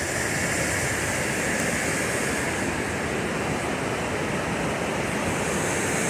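Rushing water of a fast-flowing stream: a steady, even rush with no breaks.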